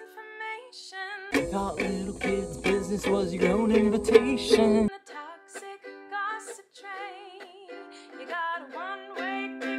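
Ukulele strumming with a voice singing over it. A little over a second in, it switches to a louder, fuller-sounding recording of ukulele and singing for about three and a half seconds, then returns to the thinner-sounding one.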